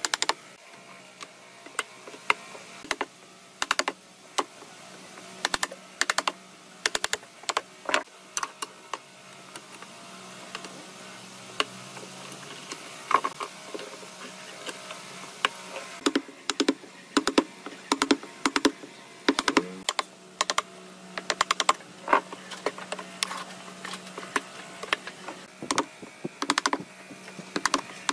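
Irregular light taps and clicks, often in quick clusters of several, over a faint steady hum.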